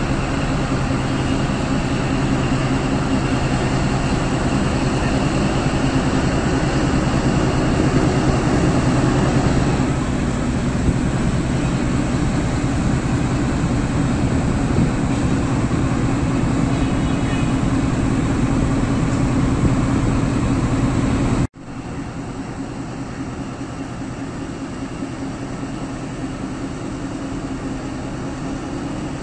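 Chinese-built ZCU-20 diesel-electric locomotive running with a steady low hum as it slowly pulls its train out of the station. About two-thirds of the way through, the sound drops abruptly and carries on at a quieter, steady level.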